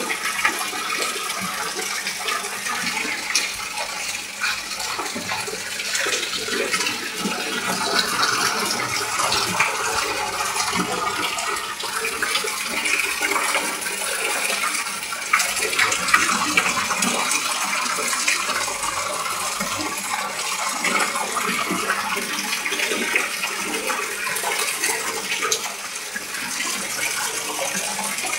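Pond water splashing and churning without a break, a dense mass of many small splashes, where a crowd of fish jostles at the surface.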